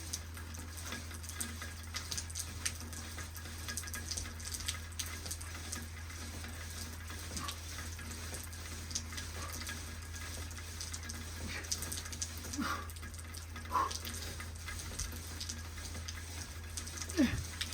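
Steady rain falling, a constant even hiss, over a steady low hum. A few brief voice-like sounds come in the second half.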